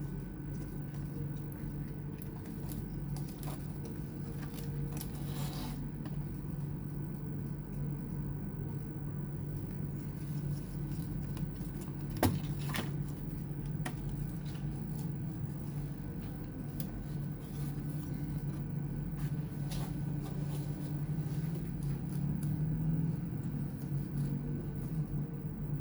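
Scattered light clicks and taps of small laptop parts being handled during disassembly, with one sharper click about twelve seconds in, over a steady low hum.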